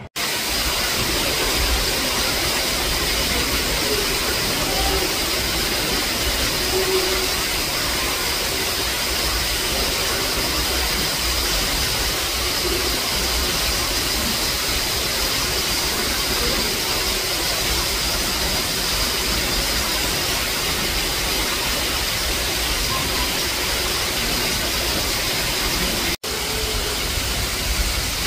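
A steady rushing noise with a thin high whine held underneath, unbroken apart from a short dropout near the end.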